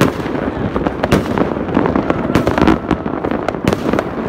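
Many fireworks and firecrackers going off at once across a neighbourhood: a dense, irregular run of bangs and crackles over a continuous rumble.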